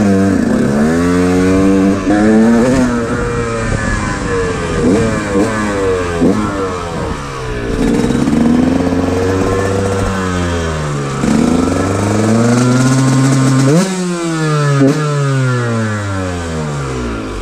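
Motorcycle engine revved hard over and over, its pitch climbing and falling several times, with a sharp rev-up about fourteen seconds in.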